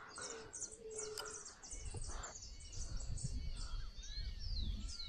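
Several birds singing and chirping from the riverside trees, many quick high chirps and short gliding whistles overlapping. A low rumble sets in underneath about two seconds in.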